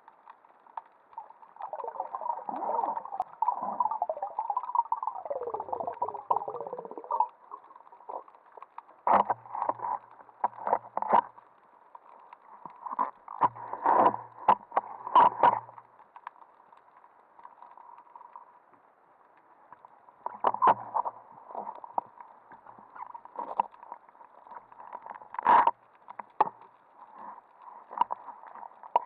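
Muffled underwater sound of a freediver moving and handling gear among rocks: swishing water with falling sweeps in the first few seconds, then irregular clusters of sharp clicks and knocks, the loudest single knock near the end.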